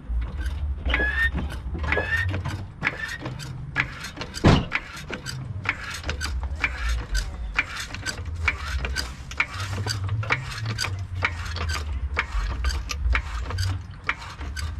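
Car jack being worked to lift a car: a steady run of mechanical clicks and creaks, with a few short squeaks near the start and a louder knock about four and a half seconds in.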